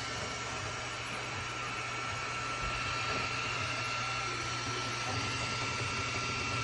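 FlashForge Adventurer 5M 3D printer running steadily: an even hum of fans and motors with a constant high tone over it, a little louder from about two and a half seconds in.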